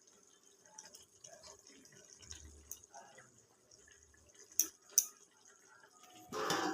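Faint kitchen noises: small scattered clinks, two sharp clicks a little over halfway through, then a short louder rush near the end.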